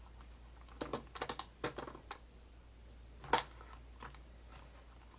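Light clicks and taps of a small plastic toy doll being handled and fitted into its plastic throne. A quick run of clicks comes about a second in, and one sharper click a little past three seconds.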